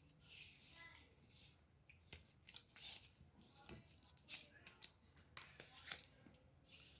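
Faint rustling and crinkling of a sheet of paper being folded and creased by hand, with scattered soft clicks.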